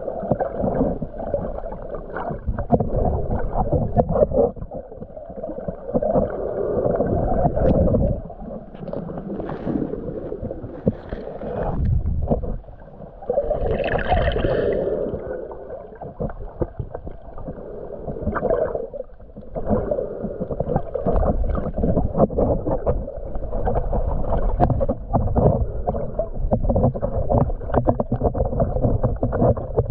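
Muffled water sloshing, bubbling and crackling, heard through a waterproof camera housing while snorkeling. The noise swells and drops in waves, with a brief higher tone about halfway through.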